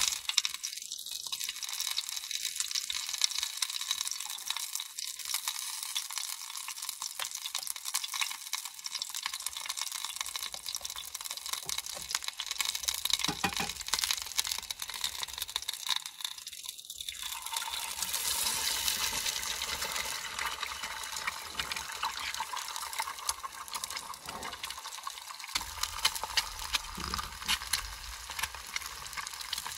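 Pan sizzling on a portable gas stove: a steady, dense crackling hiss.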